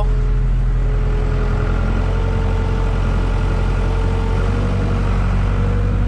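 1989 Case 580K backhoe's four-cylinder diesel engine running steadily as the machine drives along, heard from inside the cab, with a faint whine over the engine note.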